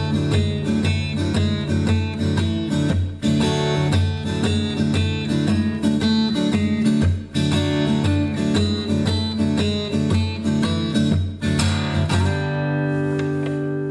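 Acoustic guitar fitted with a Skysonic T-902 pickup being strummed in a steady rhythm of chords as a sound test. Near the end a chord is left to ring out.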